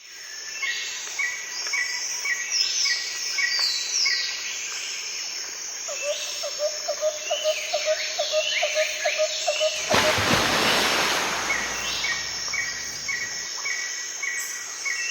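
Several birds singing: rows of short repeated chirps and quick falling whistles, with a steady run of lower repeated notes in the middle. About ten seconds in, a loud rushing hiss washes over them for a couple of seconds.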